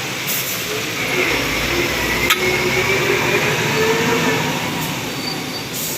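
A drawn-out metallic squeal, wavering in pitch, with a single sharp clink about two seconds in, over steady noise.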